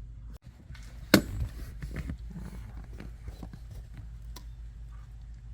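Hands handling dash-cam power wiring and connectors: one sharp click about a second in, then small clicks and rustles, over a steady low hum.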